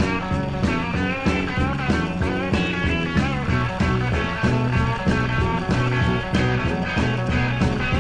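Rock music with electric guitar over a steady drum beat, with no singing.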